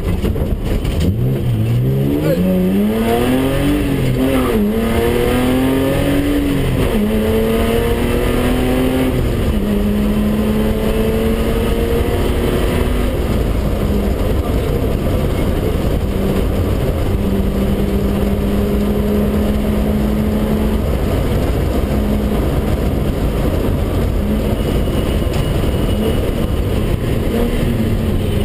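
BMW 320/6's straight-six engine heard from inside the cabin, accelerating hard out of a bend: the revs climb and drop back with each upshift two or three times in the first ten seconds. It then holds steady at high revs at full speed, with a few brief lifts near the end.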